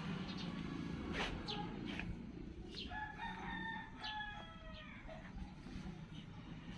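A rooster crowing once, a drawn-out call of about two seconds that tails off downward at the end.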